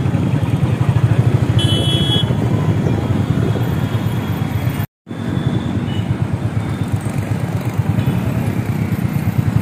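Motorcycle engine running with road and wind noise, heard from the rider's seat while riding through traffic. There is a short high beep about two seconds in. The sound cuts out for a moment about five seconds in.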